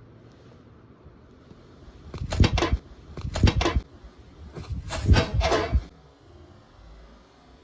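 Three short bursts of rustling and clattering handling noise, a second or so apart.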